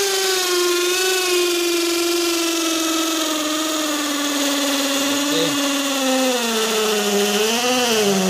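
Aneerpower BL-5120 brushless cordless hammer drill in hammer mode, boring into a concrete floor with a 10 mm masonry bit. It runs continuously, its motor pitch slowly falling as it works in.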